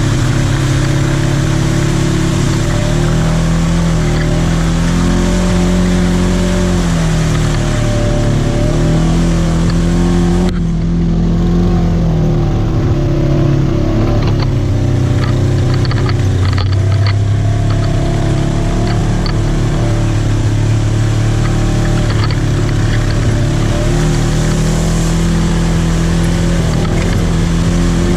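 Polaris RZR 900S side-by-side's twin-cylinder engine running on the throttle as it drives a dirt trail, its pitch rising and falling with speed, heard from inside the open cab. A hiss over the engine drops away for a few seconds about ten seconds in.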